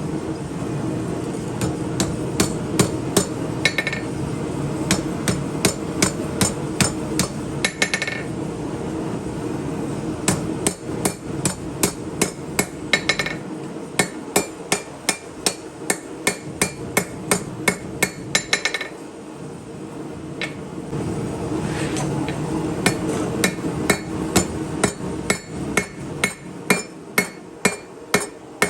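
Hand hammer striking hot steel on an anvil while a chef knife blade is forged: runs of sharp blows at about two a second, broken by short pauses. A steady low rushing noise runs underneath, and a brief ringing tone sounds a few times at the ends of runs.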